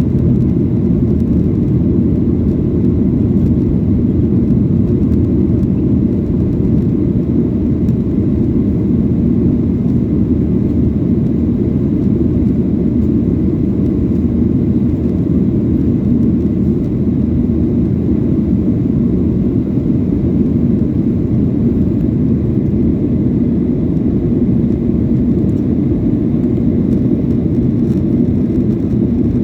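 Steady low rumble of a jet airliner in flight, engines and rushing air heard from inside the cabin, holding at one even level throughout.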